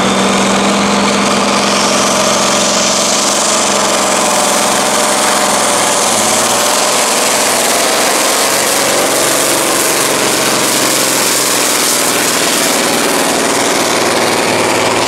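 Volvo NL10 truck's straight-piped, turbocharged inline-six diesel held at full throttle under heavy load while pulling a weight sled, running loud and steady, with a high whine rising in the first few seconds.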